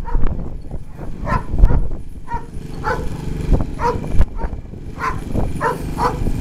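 Dog barking in short, separate yaps, about eight over several seconds, over a steady low hum.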